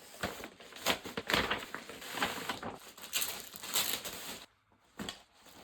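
A parcel being unwrapped by hand: its packaging rustling, crinkling and tearing in quick, irregular bursts that stop about four and a half seconds in, with one more short rustle just after.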